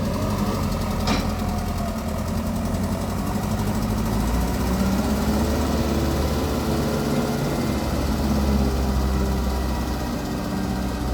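Diesel engine of a 2006 JCB 3CX backhoe loader running steadily, its low rumble growing somewhat heavier for a few seconds in the middle. A single sharp click about a second in.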